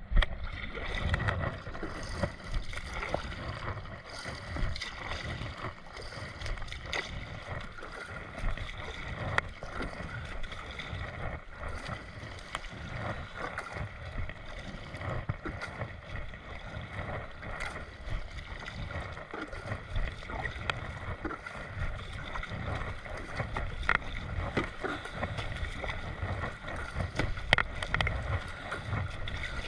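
Sit-on-top kayak being paddled on calm sea: the paddle blades dip and splash in steady strokes while water gurgles and trickles along the plastic hull, with low wind buffeting on the microphone.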